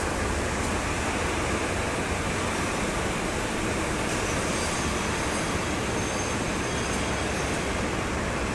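Steady, even din of a rail coach factory shop floor, machinery and ventilation noise filling the hall, with faint high whining tones joining about four seconds in.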